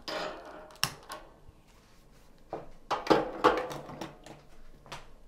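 A gas stove burner being lit with a long lighter and its knob turned: several sharp clicks with short bursts of hissing and rattling.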